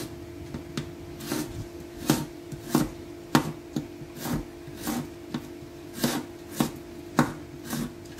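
Kitchen knife slicing a raw carrot into rounds on a plastic cutting board, each cut ending in a sharp knock of the blade on the board, in a steady rhythm of a little under two cuts a second.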